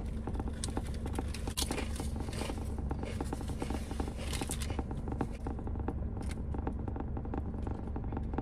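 Close-up mouth sounds of chewing a toasted sub sandwich: irregular moist clicks and soft crunches, over a steady low hum.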